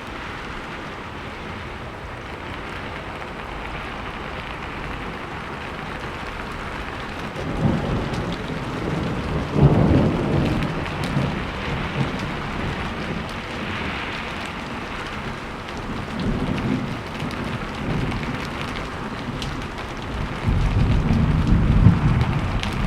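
Steady rain falling, with rolls of thunder rumbling in about a third of the way through and again, loudest, near the end.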